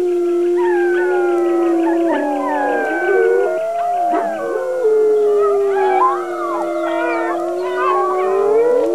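A chorus of long, overlapping howls from a group of children howling like wolves. One steady lower howl is held for seconds while higher voices slide up and down over it.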